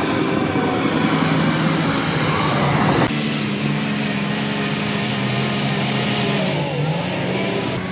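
Heavy diesel earthmoving machinery running steadily, with the engine note and background changing abruptly about three seconds in.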